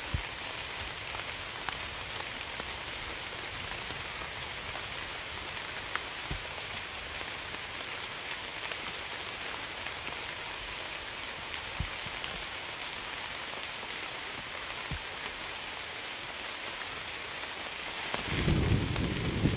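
Steady rain falling on a surface, with individual drops ticking here and there. A low rumble of thunder begins near the end.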